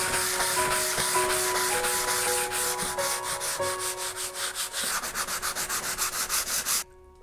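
Sanding sponge rubbed by hand in quick back-and-forth strokes over a decorative plaster wall relief, sanding the raised stencilled plaster. The rubbing is steady and stops abruptly near the end.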